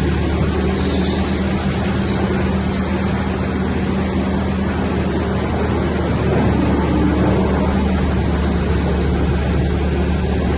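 Stump crusher wood chipper running with a steady low mechanical drone and hum, with no separate knocks or crunches standing out.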